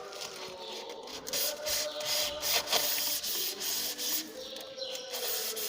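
Rough scraping and rubbing noise with scattered clicks and knocks, from work on sandwich panels.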